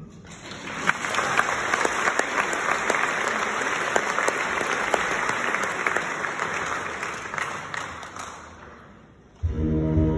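Audience applauding in a hall, a dense patter of clapping that builds quickly, holds, then fades away over about eight seconds. Near the end the concert band starts playing again.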